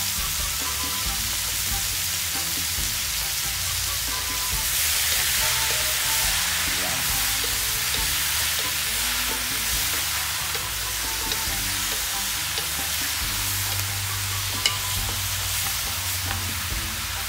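Diced pork and pork stomach sizzling as they sauté in hot oil in a wide metal wok, stirred and tossed with a wooden spatula. The sizzle swells for several seconds from about five seconds in, and there is one sharp click near the end.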